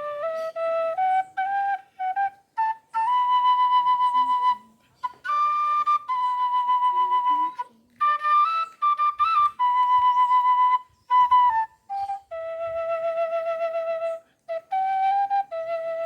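Quena (Andean notched end-blown flute) playing a solo melody in phrases of long held notes and quicker steps, with short breath pauses between phrases. Some held notes carry a wavering vibrato.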